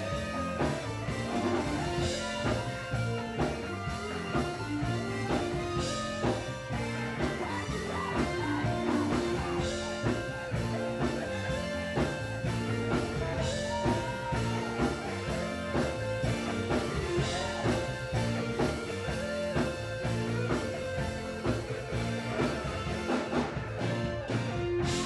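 Live gospel band music: electric guitars and bass guitar playing over a steady beat.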